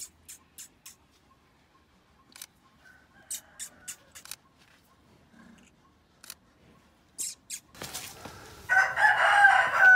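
A rooster crowing: one long crow starting about nine seconds in, the loudest sound here. Before it come scattered sharp, high clicks.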